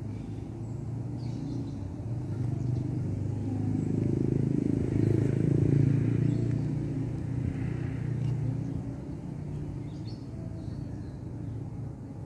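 A motor vehicle passing on the road: a low engine rumble that builds, peaks about halfway through and fades away.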